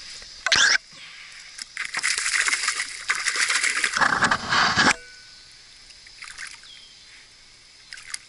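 A hooked bass thrashing at the surface in a thick mat of pond weed and algae as it is brought in. There is a short splash about half a second in, then a few seconds of continuous splashing that stops abruptly about five seconds in.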